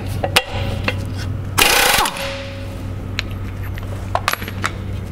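Impact wrench with a 27 mm socket hammering briefly on an outboard motor's propeller nut to undo it, about a second and a half in. Scattered clicks of the tool and socket come before and after, over a steady low hum.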